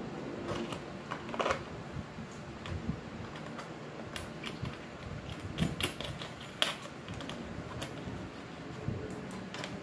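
Irregular small clicks and taps of hard plastic as a switch is handled and pressed into a motorcycle's plastic body panel, a few sharper clicks standing out among them.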